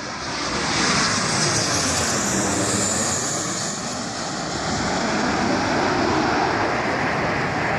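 Jet airliner passing close overhead: a steady rushing jet-engine noise that swells about a second in and holds, with a slowly sweeping, phasing tone as the aircraft moves past.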